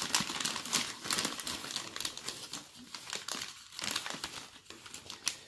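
Newspaper being unwrapped by hand, crinkling and rustling in irregular crackles that thin out about halfway through, with a few sharper crackles near the end.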